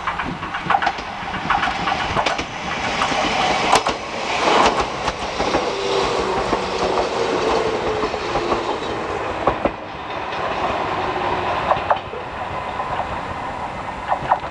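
Chichibu Railway 1000 series (ex-JNR 101 series) electric train passing close by: wheels clacking over the rail joints, loudest about four to five seconds in, with a whining tone that drops in pitch as it goes past, then the clatter fading as it runs away.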